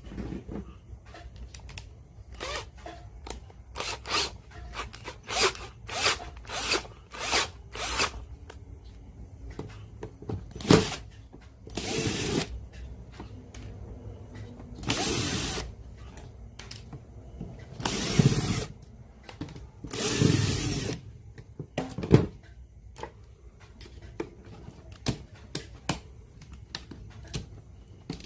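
Repair work on a cassette player: a tool runs in short bursts, first a quick string of brief ones, then several longer bursts of about a second each.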